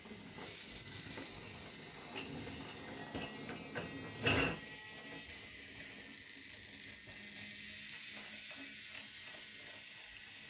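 Toy train mechanism clicking and ratcheting, with one sharp, louder clack about four seconds in, then a run of light, even ticks.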